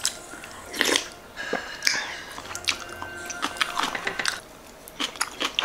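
Eating sounds: broth of sundae gukbap slurped from a spoon, then chewing, with small clicks of spoon and chopsticks. The two loudest slurps come about one and two seconds in.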